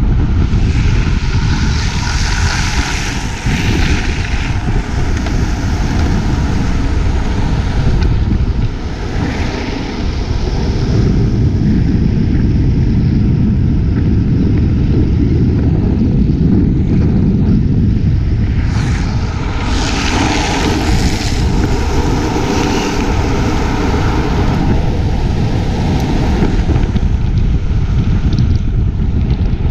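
Heavy wind buffeting on the microphone with steady rolling rumble on asphalt at downhill speed, rising in hiss for a few seconds twice.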